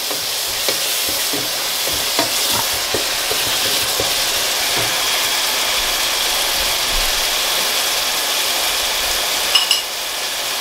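Onion, tomato and spice masala sizzling in a pot as it is stirred with a wooden spoon, with a few light knocks and scrapes of the spoon against the pot in the first half.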